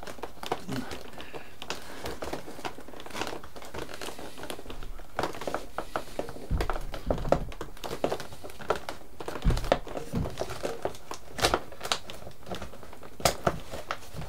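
Hands handling and seating the foam wing of an E-flite Ultimate 3D model plane while working its locking pins: irregular rustling and creaking of foam with scattered small clicks, and a few dull knocks around the middle.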